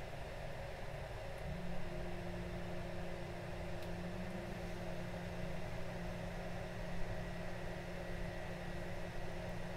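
A steady low mechanical hum that sets in about a second and a half in, over a background of room noise.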